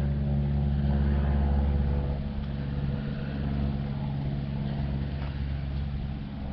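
Steady low mechanical hum from the 2012 Nissan Armada, a drone of fixed low tones that eases off a little about two seconds in.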